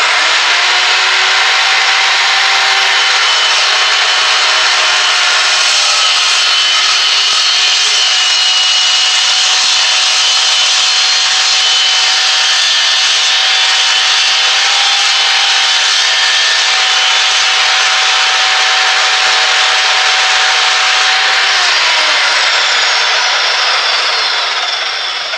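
DeWalt 14-inch cold cut (dry cut) chopsaw with a 79-tooth metal blade starting up and cutting through a metal pipe, fed with just the weight of the hand: a loud, steady cutting sound with high ringing tones. About 22 seconds in the motor is switched off and the blade winds down, its pitch falling away.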